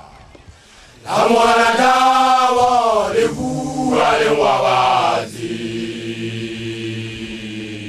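Male voices chanting a Sesotho initiation song. A loud lead line with gliding pitch comes in about a second in and breaks off after about four seconds, over a low sustained chorus drone that carries on to the end.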